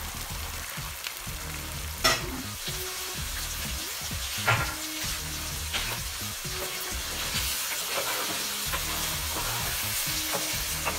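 Salt fish, onions and peppers sizzling steadily in coconut oil in a frying pan, with a wooden spoon stirring and knocking against the pan a few times.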